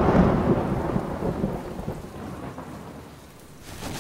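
Thunderclap sound effect from the show's soundtrack, rolling away and fading over about two seconds, with another sharp crack just before the end.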